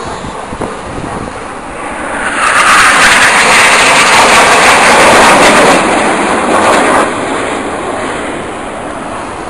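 Jet engine noise from a five-ship formation of Turkish Stars NF-5 fighters (each with twin J85 turbojets) flying past overhead. The rushing noise swells about two seconds in, stays loud for several seconds, then drops sharply about seven seconds in and carries on at a lower level.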